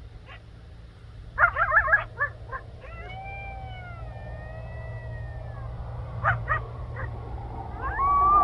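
Coyotes yipping and howling: a burst of quick, wavering yips, then long gliding howls, and more short yips with a rising howl near the end.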